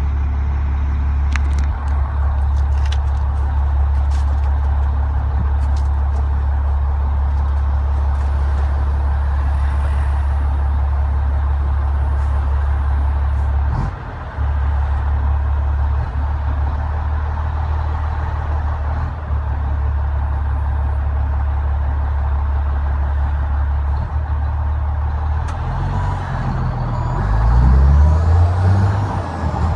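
Renault Magnum 440's Mack E7 E-Tech inline-six diesel pulling steadily, heard from inside the cab as a loud, low drone. The engine note drops out briefly about halfway through, then climbs in pitch and grows louder near the end as the truck accelerates.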